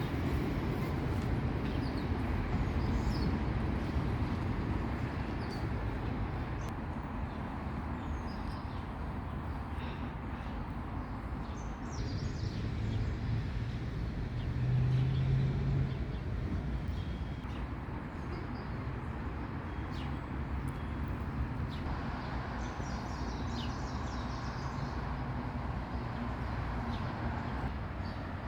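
Small birds chirping now and then over a steady low rumble of city traffic.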